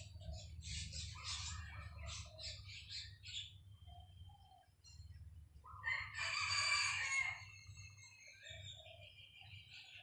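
Birds chirping, then a rooster crows once about six seconds in, the loudest sound, lasting about a second and a half.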